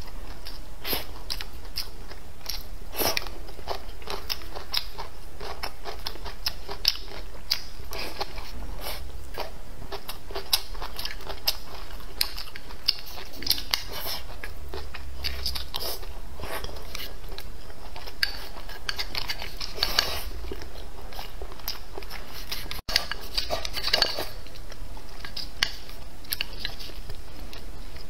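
A person chewing and biting food close to the microphone: a steady run of sharp wet mouth clicks and small crunches.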